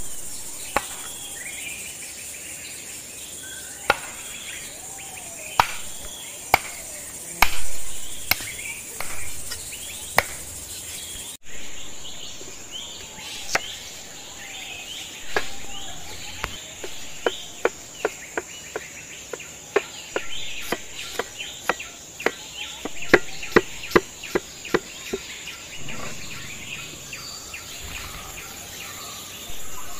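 Cleaver chopping on a wooden cutting board: single chops spaced a second or two apart, then after a break a fast run of chops. A steady high insect buzz runs underneath, with some bird chirps.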